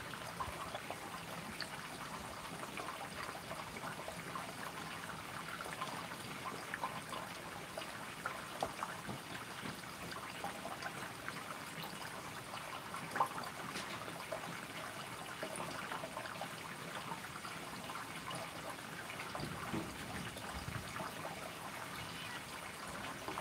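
A cat feeding with its head in a bowl: a steady, irregular run of small wet mouth clicks over a faint outdoor hiss.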